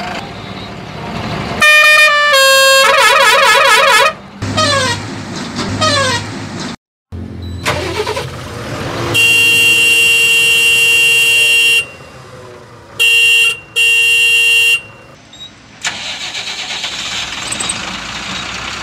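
A run of edited-in vehicle sound effects. It opens with warbling and falling whistle-like tones. About nine seconds in comes a long steady horn blast, and after it two short horn honks.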